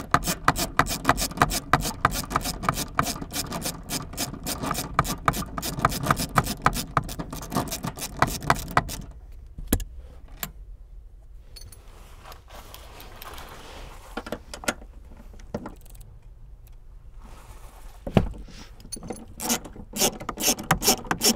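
Hand ratchet with a 14 mm socket clicking rapidly as it backs out a seat-mounting bolt. The clicking stops about nine seconds in and starts again, just as rapid, shortly before the end.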